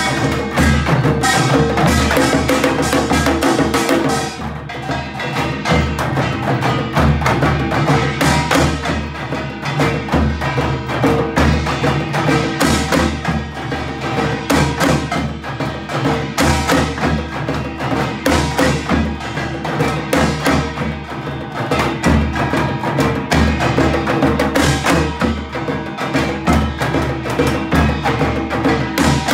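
Ensemble of handheld frame drums struck with sticks, together with a large laced Korean barrel drum beaten with a stick, playing a dense, continuous rhythm.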